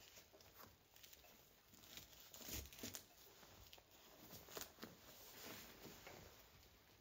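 Faint rustling and rubbing of fabric as hands pull a braided obijime cord across a kimono obi, with small irregular scuffs, loudest about two and a half seconds in.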